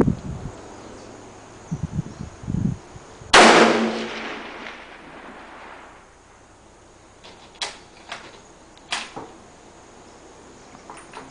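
A single shot from a .308 Winchester scoped rifle about three seconds in, loud and sudden, its report dying away over the next two seconds or so. Two short sharp clicks follow a few seconds later.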